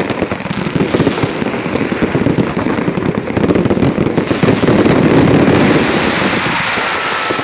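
Aerial fireworks display: dense, continuous crackling and popping of many shells bursting at once, loudest about five seconds in.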